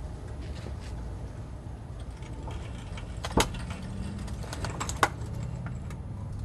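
Car jack being let down under an SUV: scattered light clicks and knocks, with two sharp clicks about three and a half and five seconds in, over a low steady rumble.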